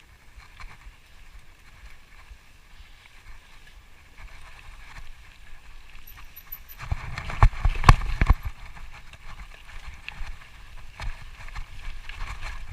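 Mountain bike rattling over a rough, rocky trail, with a cluster of hard knocks and thumps about seven to eight seconds in as it rides over a drop or rocks.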